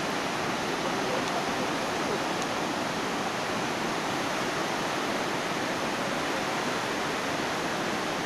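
Steady rushing of a muddy river in full flood, swollen by heavy rain upstream.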